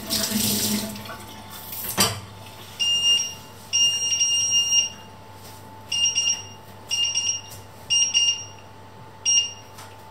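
Touch-control beeps from a glass-top electric hob as its settings are changed: six high electronic beeps at one pitch, uneven in length, some held about a second. Before them, a tap runs briefly and stops, then there is a sharp click about two seconds in, over a steady low hum.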